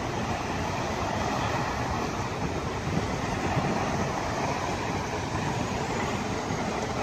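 Steady jet airliner engine noise: a low rumble with a hiss above it.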